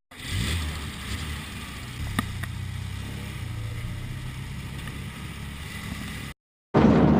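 A vehicle engine running, with a sharp click about two seconds in, after which a steady low hum holds.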